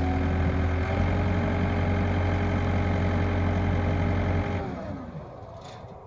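2006 John Deere 320 skid steer's diesel engine idling steadily, then shut off about four and a half seconds in, its pitch sliding down as it winds to a stop.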